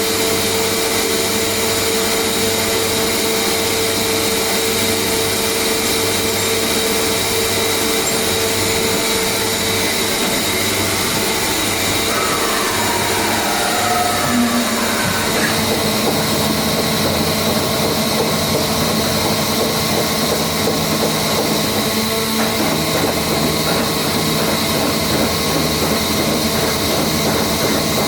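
Mazak FH580-40 CNC horizontal machining centre running, a steady mechanical hum and hiss with held whining tones. About halfway through, a whine falls in pitch and a lower steady hum takes over.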